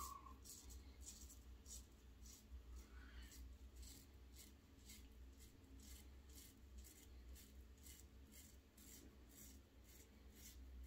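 Faint, quick scraping strokes of a Focus Slim AL shavette blade cutting lathered stubble against the grain, about two or three short strokes a second.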